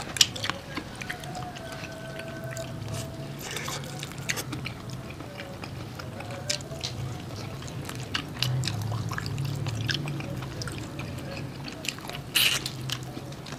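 Two people biting and chewing fried chicken close to the microphone: a run of sharp wet mouth clicks and smacks, with a short louder burst of noise near the end.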